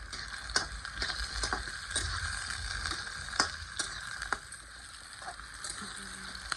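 Onions frying in hot mustard oil with a steady sizzle, and irregular sharp clicks of stirring against the pan.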